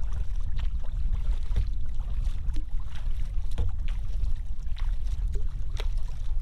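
Double-bladed kayak paddle dipping into lake water stroke after stroke, a series of light splashes, over a steady low rumble of wind on the microphone.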